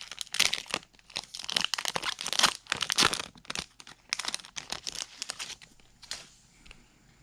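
Wrapper of a hockey card pack crinkling and tearing as it is opened by hand, a dense crackle that dies down about six seconds in.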